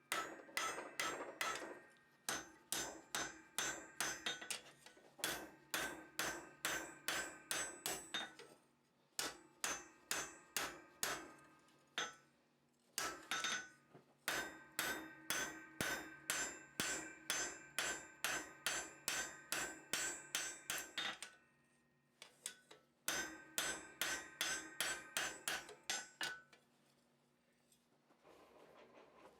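Blacksmith's hammer striking 1/2-inch square bar on an anvil while rough forging, in runs of steady blows about two or three a second, each with a ringing tone. The runs break off for short pauses a few times, and the hammering stops near the end.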